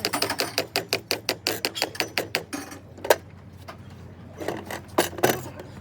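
Hand-tool work on a truck's steering gear: a fast run of sharp clicks, several a second, then a loud single knock about three seconds in and a few more knocks near the end.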